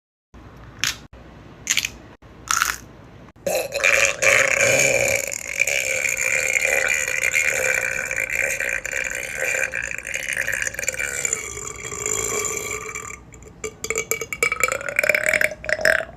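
A girl burping: three short burps, then one very long, drawn-out burp lasting about ten seconds that breaks up into short croaks near the end.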